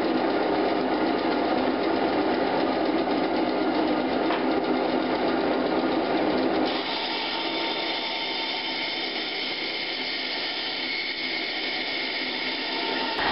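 Workshop band saw running steadily. About halfway through, the blade starts cutting into a black acrylic pipe mouthpiece and the sound turns brighter and higher.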